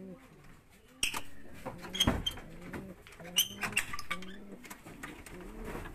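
Domestic pigeons cooing over and over, in short low coos. Several sharp knocks and clicks come in between, the loudest about two seconds in.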